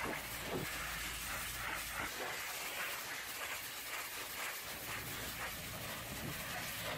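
Hot-water pressure-washer lance spraying a jet against the sheet-metal panels of a box truck's body: a steady hiss of water, with a low rumble underneath for the first two seconds.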